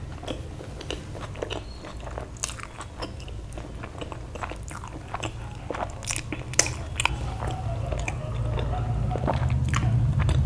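Close-up mukbang eating sounds: biting into and chewing a soft malai chaap roll, a run of wet mouth clicks and smacks. A steady low hum runs underneath.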